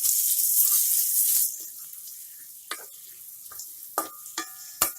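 Sliced onions frying in hot oil in a metal karai, being browned into beresta. There is a loud sizzle for about the first second and a half, then a quieter sizzle with several sharp clinks of the stirring spoon against the pan, some of them briefly ringing.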